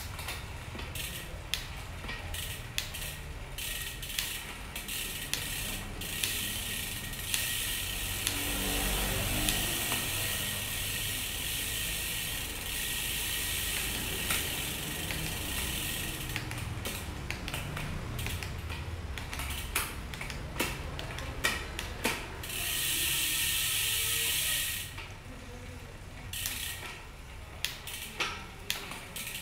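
Gear-shift clicks from mechanical and electronic Shimano Ultegra 11-speed road-bike shifters, many sharp clicks as the gears change, over the ratcheting buzz of a spinning rear wheel's freehub. The buzz runs steadily for several seconds about a quarter of the way in, and again briefly about three quarters of the way through.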